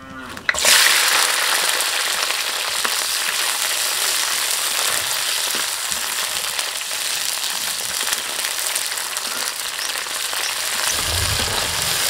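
Sliced red chillies, shallots and garlic frying in hot oil in a wok: a loud, steady sizzle that starts suddenly about half a second in.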